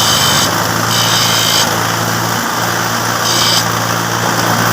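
Carbon brush for a starter motor being trimmed down by hand: three short rasping strokes, the first two close together and the third about three seconds in, over a steady engine hum.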